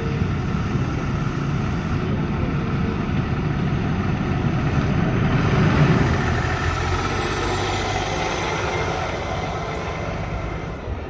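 A large vehicle's engine running, growing louder to a peak about six seconds in and then fading away as it passes.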